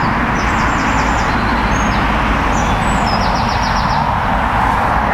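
Steady noise of road traffic going by close at hand, with a small songbird singing high trills over it, two quick rattling runs among them.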